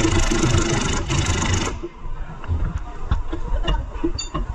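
A power tool runs loudly for a little under two seconds, then cuts off, leaving scattered knocks and clanks of metal work on the suspension.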